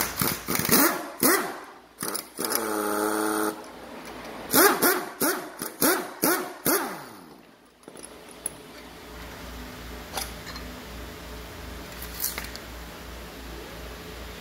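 A dog barking and yelping in a quick series of short calls that fall in pitch, with one longer held whine a couple of seconds in. The barking stops at about eight seconds, leaving a low hum and a couple of light clicks as the metal strut parts are handled.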